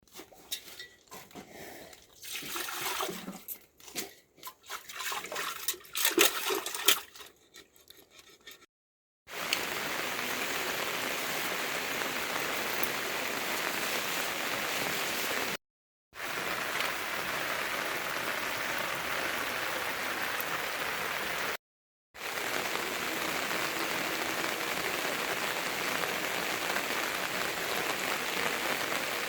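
Scattered knocks and clicks for the first several seconds, then a steady rush of water that cuts out abruptly twice.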